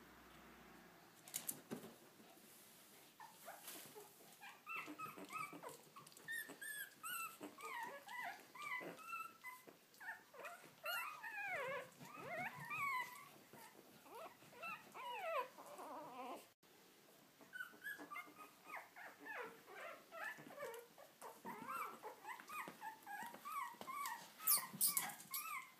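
Three-week-old Lhasa Apso puppies whimpering and squeaking: runs of short, high cries that bend up and down in pitch, with a brief break partway through. A few brief sharp noises near the end.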